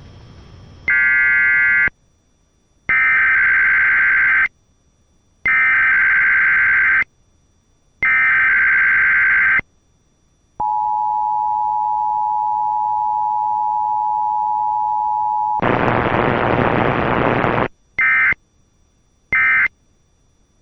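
Emergency Alert System Required Weekly Test broadcast over AM radio. First comes a series of four screeching bursts of digital data tones, the SAME header. Then the steady two-tone attention signal holds for about five seconds, a burst of loud hiss lasts about two seconds, and three short end-of-message data bursts close it.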